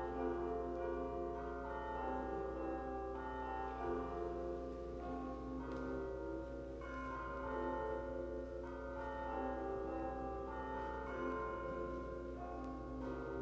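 Bells ringing a tune: one pitched note after another, each ringing on long and overlapping the next, a new note about every half second to a second.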